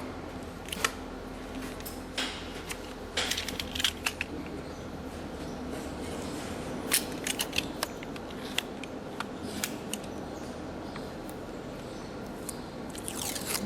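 PVC window profile welding machine at work: a steady low hum with irregular sharp clicks and clacks, clustered about three seconds in, around seven seconds, and near the end.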